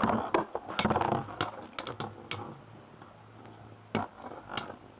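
Spinning Beyblade tops with metal wheels clicking and knocking against each other and the stadium: a rapid run of clicks over the first couple of seconds, then a couple of single knocks near the end.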